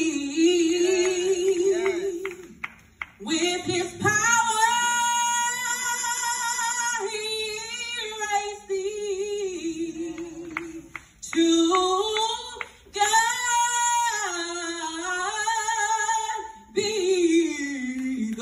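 A woman singing a gospel solo through a microphone, holding long sustained notes with vibrato, with short pauses for breath between phrases.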